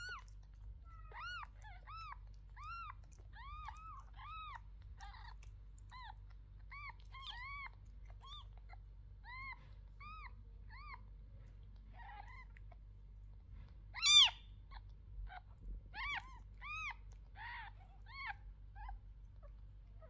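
Newborn kittens mewing: a steady run of short, high-pitched squeaks that rise and fall in pitch, one or two a second, with a much louder cry about fourteen seconds in. A faint steady low hum runs underneath.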